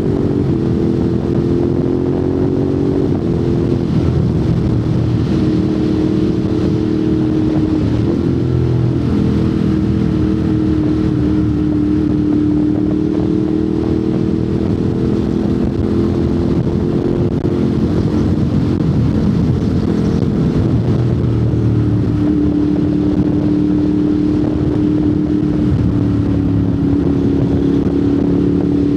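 Ducati Monster 821's 821 cc L-twin engine through a Termignoni exhaust, ridden at moderate, steady revs. Its pitch falls and rises several times as the throttle and gears change.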